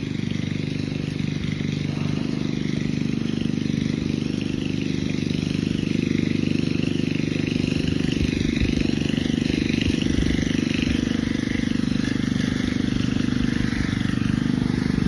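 An engine running steadily, a low mechanical hum that grows a little louder in the second half.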